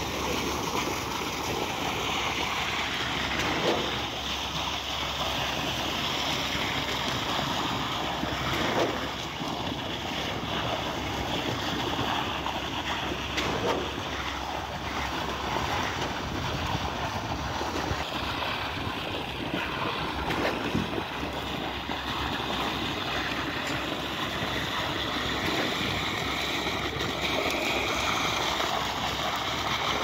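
Concrete pump running steadily as wet concrete is discharged from its hanging end hose onto rebar mesh, with a few brief knocks along the way.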